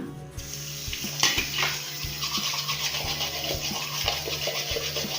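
An old brush scrubbing a washing machine's plastic lint filter in rapid back-and-forth strokes to clear the dust caked in it.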